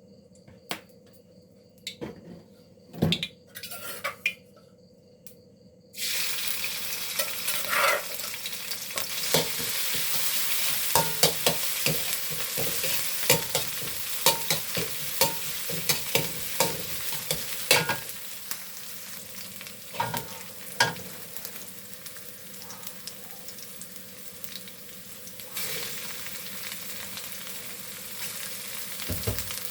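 A few light knocks, then about six seconds in a sudden loud sizzle as food goes into hot oil for a stir-fry. A spatula clacks and scrapes against the pan over and over while it fries. The sizzle eases past the middle and picks up again near the end.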